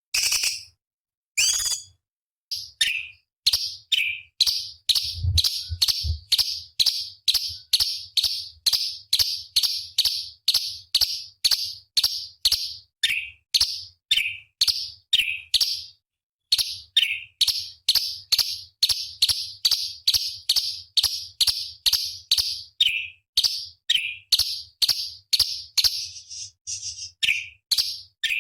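Orange-bellied leafbird singing a long, rapid run of short, sharp, high notes at about two a second, with a brief pause about halfway through.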